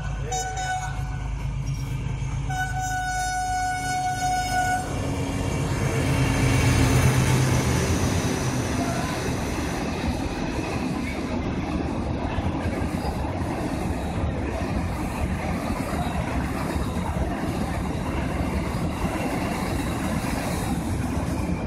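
KTM Class 26 diesel-electric locomotive sounding its two-note horn in two blasts, the second about two seconds long, then its engine rumble swelling as it passes. The long train of container flat wagons follows with a steady rolling rumble and rattle of wheels on rail.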